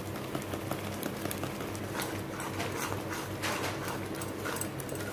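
Steel spoon stirring thick masala gravy in a metal kadai: irregular scrapes and light knocks against the pan, over a steady low hum.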